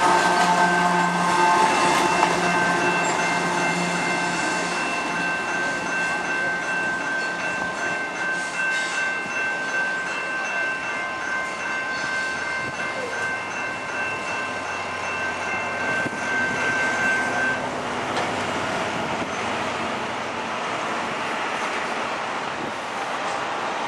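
A loaded hopper freight train's rear end going by: the rear-end remote locomotive, a CP ES44AC diesel, rumbles past close at the start, then the train's noise slowly fades as it rolls away. Over the rumble, a steady high squeal rings for about fifteen seconds and cuts off abruptly about two-thirds of the way through.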